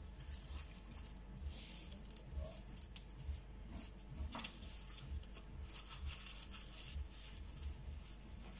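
Plastic cling film crinkling and rustling in irregular bursts as it is folded tightly around a sandwich by hand, with one sharper crackle about four seconds in. A faint low pulse sounds about once a second underneath.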